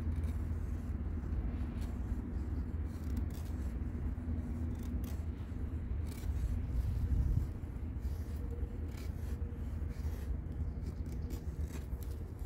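Kubey 269 knife blade shaving thin curls down a eucalyptus stick to make a feather stick: repeated short scraping strokes of steel on hardwood.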